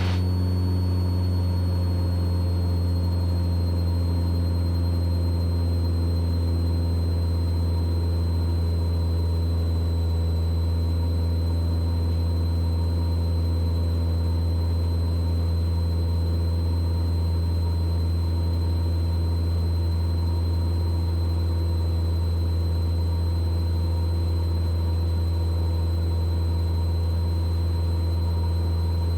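Mooney M20E's four-cylinder Lycoming IO-360 engine and propeller droning steadily at climb power, heard inside the cabin, with a thin steady high whine above the drone.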